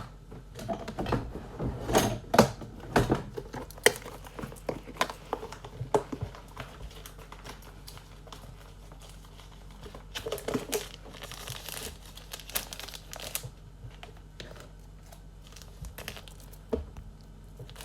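Plastic team bags and card sleeves crinkling and rustling as trading cards are handled and packed, with scattered sharp clicks and taps. It is busiest in the first six seconds and again around ten to thirteen seconds in, then thins out.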